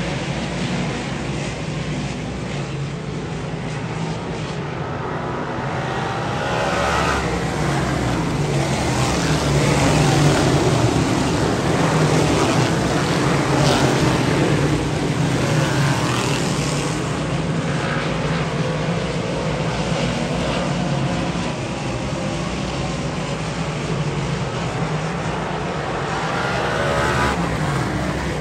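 Dirt modified race cars' V8 engines running at speed as a pack circulates. The engine note swells and sweeps in pitch as cars pass, about three times.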